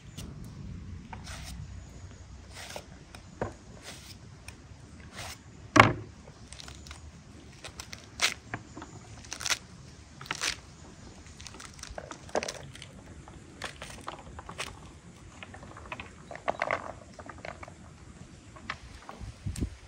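Pomegranates being cut with a knife and pried apart by hand over a wooden board: irregular crackling and crunching of the rind, with small knocks of fruit and seeds on the wood. One louder knock comes about six seconds in.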